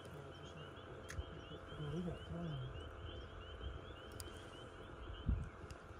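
A chorus of peeping frogs: short, high, rising peeps repeating rapidly several times a second, with a low murmur of a voice about two seconds in and a single dull knock about five seconds in.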